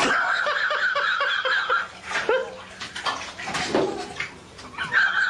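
Bathwater splashing as a cat thrashes in a filled bathtub and scrambles out; loudest over the first two seconds, with further splashes after.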